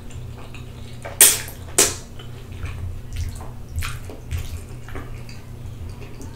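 Close-miked wet mouth sounds of a person eating spaghetti, slurping and chewing. Two sharp, loud smacks come about a second in and again just under two seconds in, with softer ones after.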